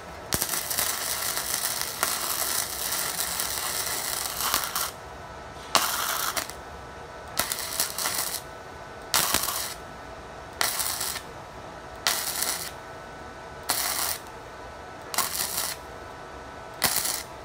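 YARU MIG-250Y gasless (flux-core) MIG welder's arc crackling while fillet-welding square steel tube: one continuous run of about five seconds, then eight short spells about a second and a half apart.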